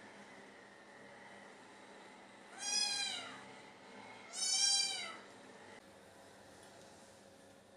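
Two high kitten meows about a second and a half apart, each rising and then falling in pitch, from blue British Shorthair kittens.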